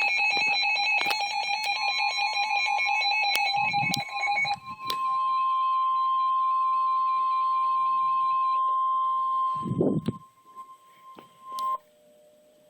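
NOAA Weather Radio alert: a receiver's rapid electronic alarm beeping for the first few seconds, overlapping the start of the 1050 Hz warning alarm tone, a single steady tone that holds for about ten seconds and cuts off about a second before the end. The tone signals that an emergency warning broadcast follows. Two dull thumps come about four and ten seconds in.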